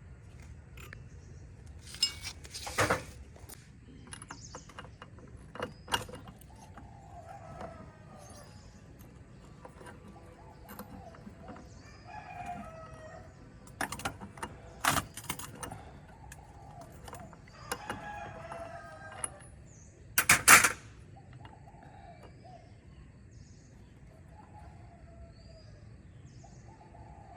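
A rooster crowing and chickens clucking repeatedly, with several sharp knocks and clanks, the loudest a short cluster about two-thirds of the way through.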